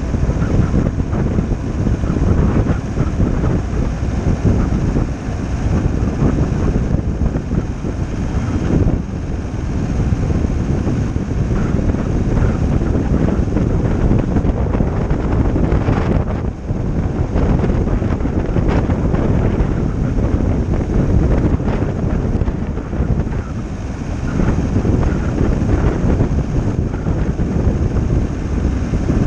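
Wind buffeting the microphone of a camera on a moving VW T6 camper van: a steady, heavy low rush with the van's road noise under it.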